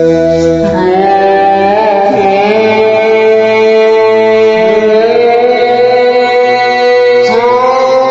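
Music with long held notes that slide up into new pitches about a second in and again near the end, with singing.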